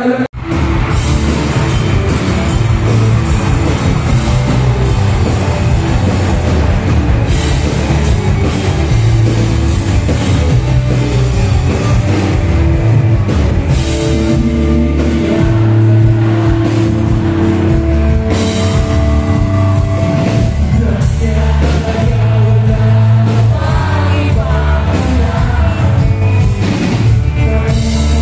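Live rock band playing through a loud stage sound system, with electric guitar, bass, drums and singing.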